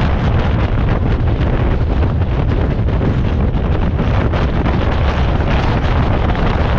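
Steady wind rushing over the microphone of a car-mounted camera, mixed with the low rumble of a car driving at speed on the road.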